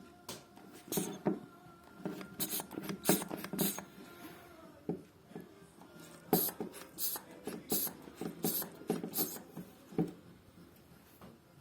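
A series of irregular clicks and light knocks, some in quick clusters, as of hard parts being handled.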